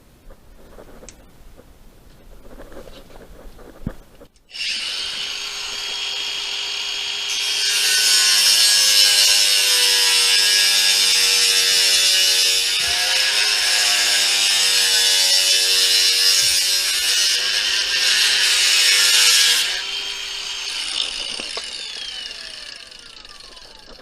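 Electric power saw starting up and cutting through a board for about twelve seconds, its motor pitch wavering under load, then released and spinning down with a falling whine.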